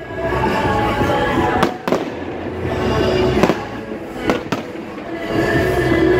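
Aerial fireworks shells bursting overhead: about five sharp bangs, two close together about a second and a half in and three more in the second half, over a continuous din of voices.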